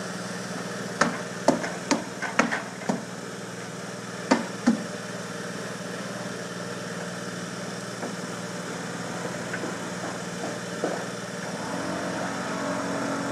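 About eight sharp knocks in the first five seconds as a new window is nailed in place, over a steady low engine-like hum; a second, higher tone joins the hum near the end.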